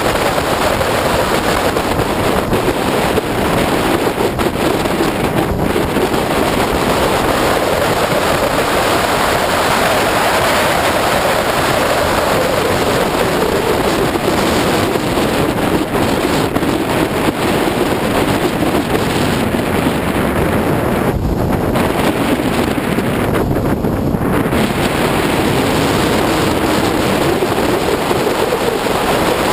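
Opel Speedster running at speed on a race track, heard from an onboard camera: the engine under load, buried in heavy wind rush on the microphone.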